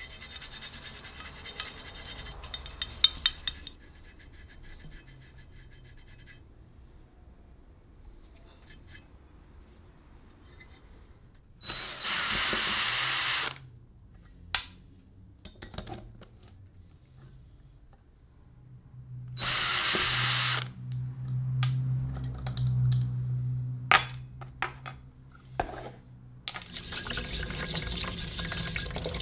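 A handheld power tool, such as a drill, runs in several short bursts among the clicks and knocks of small metal parts being handled.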